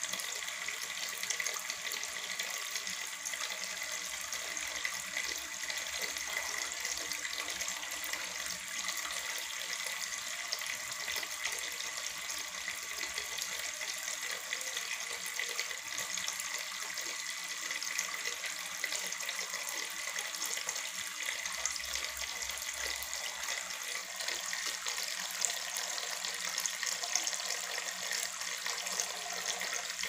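Small cement tabletop water fountain running: water spilling from the upper bowl down into the pebble-filled basin with a steady splashing trickle.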